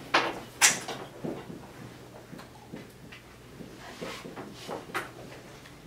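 Marker pen writing on a whiteboard: a series of short scraping strokes, the strongest about half a second in and another cluster around four to five seconds in.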